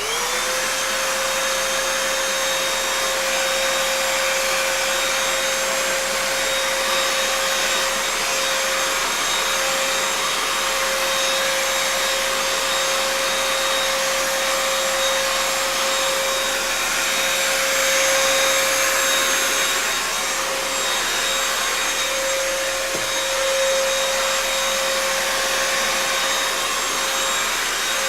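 Vacuum cleaner switched on: the motor spins up within the first moment, then runs steadily, with a constant whine over the rush of air.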